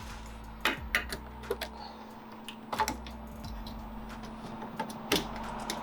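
Scattered sharp clicks and taps at irregular intervals from hands and tools working the car's plastic inner fender liner and trim, over a faint steady hum.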